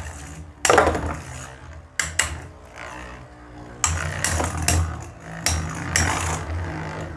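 Two metal-wheeled Beyblade spinning tops, Phantom Orion and Cosmic Pegasus, whirring in a plastic stadium. They clash with repeated sharp clacks, one or two in the first half and several in quick succession in the second half, as Cosmic Pegasus attacks.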